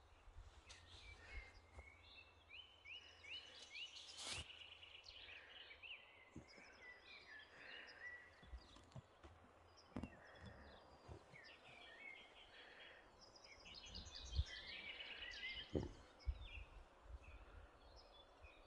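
Faint songbirds chirping and trilling, short quick notes in several runs, with a few soft knocks and rustles close by.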